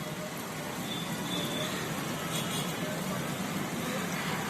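Road traffic: a steady rumble of passing vehicles.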